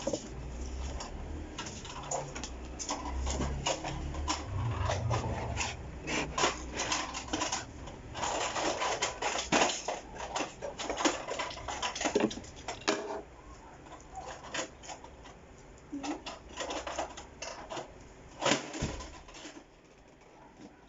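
Small plastic toy pieces clicking and clattering as they are handled, busiest in the middle and thinning to scattered clicks near the end.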